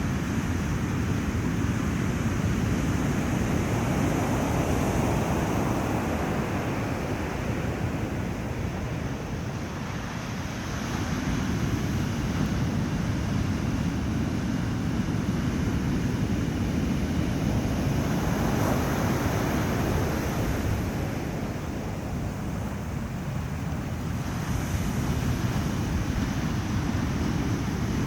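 Pacific surf breaking and washing up a beach, a continuous wash of water noise that swells and eases every several seconds, with wind buffeting the microphone underneath.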